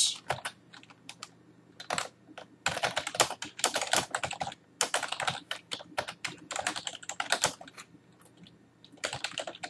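Typing on a computer keyboard: runs of rapid keystrokes broken by short pauses.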